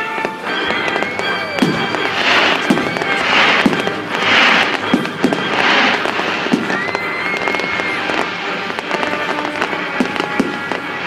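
Fireworks going off: a run of sharp pops and bangs, with four hissing bursts about a second apart in the middle and crackling throughout.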